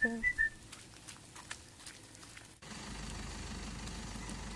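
A few light footsteps on wet gravel and mud, then, after a cut about two and a half seconds in, a steady low rumble.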